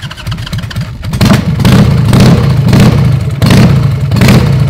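Harley-Davidson bobber's V-twin engine running just after starting, then revved in a series of quick throttle blips, about two a second, from about a second in.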